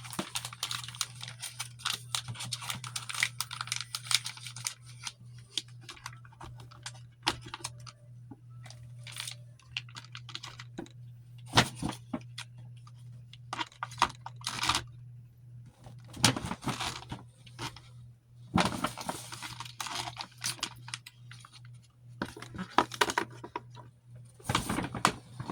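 Small items being handled and sorted: irregular clicks, clatters and rustling of packaging, over a steady low hum.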